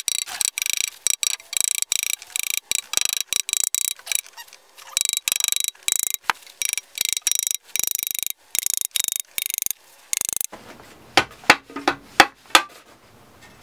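Rapid clicking and rattling as the aluminum Tuttle-to-top-plate adapter is knocked with a rubber mallet and worked loose from the carbon foil mast, then a few sharper, separate knocks near the end as it comes free.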